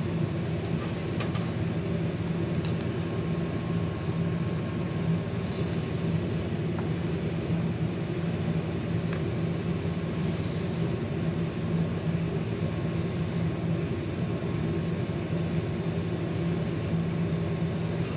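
Steady low machine hum, like a fan running, with a few faint clicks.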